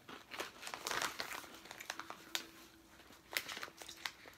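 Foil snack-chip bag crinkling as it is handled, in a series of short rustles and crackles.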